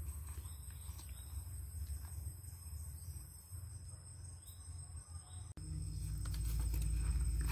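Insects trilling steadily at a high pitch over a low rumble. A little over five seconds in, the rumble gets suddenly louder and a few light rustles and clicks come in.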